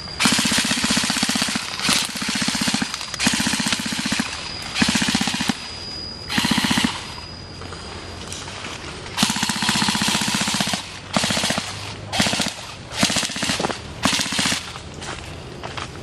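Airsoft rifles firing on full auto: about a dozen bursts of rapid shots, two of them well over a second long and the rest short, with brief pauses between.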